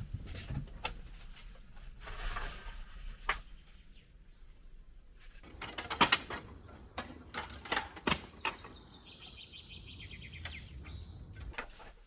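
Wooden slats and debris knocking and clattering as they are handled. A short run of rapid high bird chirps comes near the end.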